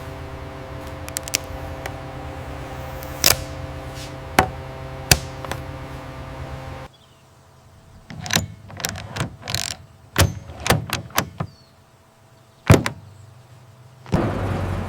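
A steady hum with a few sharp clicks, then a quieter run of knocks and a loud door-like thunk near the end, after which a vehicle starts running.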